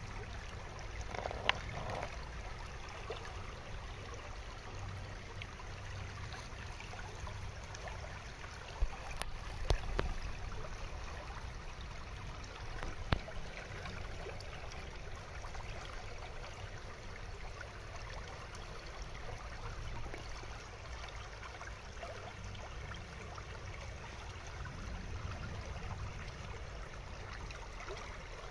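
Shallow mountain stream running steadily over stones, with a few sharp clicks scattered through it.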